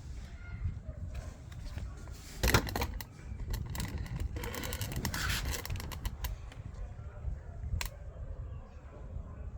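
Hand work on a washing machine's plastic door handle parts: sharp clicks and scraping. There is a loud burst of clicks about two and a half seconds in, a run of rapid clicking and rasping through the middle, and a single sharp click near the end.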